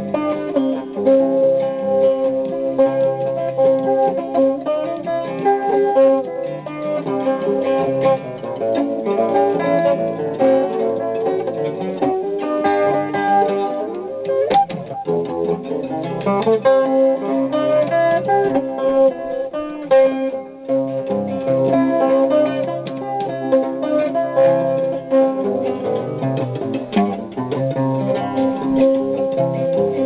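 Guitar picked through an instrumental jazz-style tune, with many quick notes.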